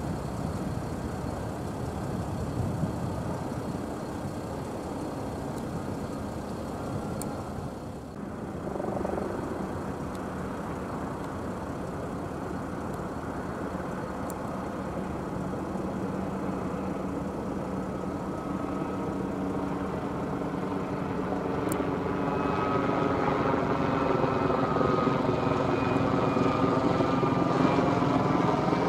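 Brantly B-2B helicopter in flight: its Lycoming four-cylinder piston engine and rotor running steadily. The sound dips briefly about a quarter of the way in, then grows louder over the last third with a sweeping, phasing quality.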